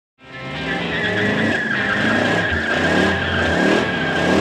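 1971 Dodge Charger R/T's 426 Hemi V8 revving hard through a burnout, with the rear tyres spinning. A steady high tyre squeal sets in about a second in, over the wavering engine note.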